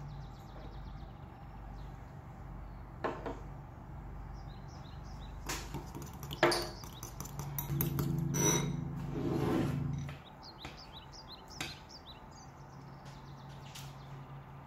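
Occasional clinks of a metal fork against a glass bowl as beaten egg is stirred, with faint bird chirps in the background. A low hum swells for a couple of seconds past the middle, then drops away.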